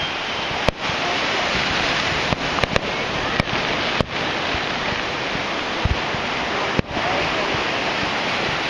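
Fireworks going off: about seven sharp bangs and cracks, several close together in the first four seconds and one more near the end, over a steady rushing noise.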